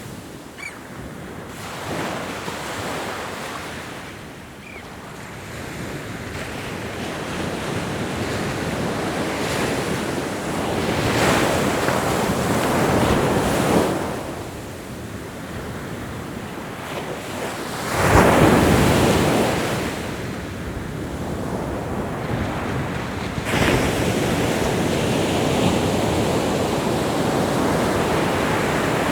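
Ocean waves breaking on a shore, the surf rising and falling in slow surges every few seconds, the biggest wave breaking about two-thirds of the way through, with some wind noise on the microphone.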